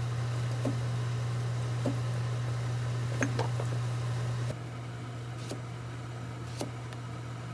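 A steady low mechanical hum that drops in level about four and a half seconds in, with a few light clicks and taps over it.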